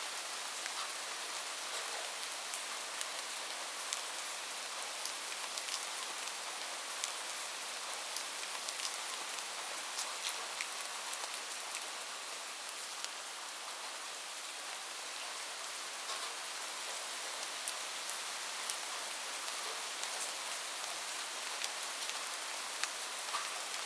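Steady rain falling, a continuous hiss with scattered sharp drops ticking on a surface.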